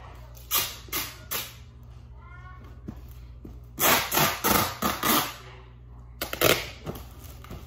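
Packing tape being pulled off a handheld tape dispenser and pressed onto a cardboard box: a few short rips in the first second and a half, then a longer run of loud rasping pulls about four to five seconds in, and one more about six and a half seconds in.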